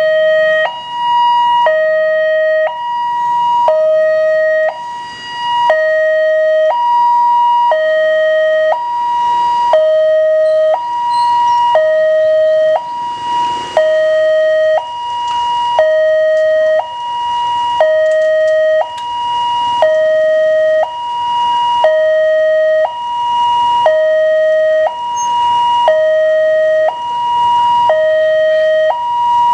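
Railway level-crossing warning alarm sounding a two-tone electronic chime, a lower and a higher tone taking turns about once a second. It means the barriers are down and a train is approaching.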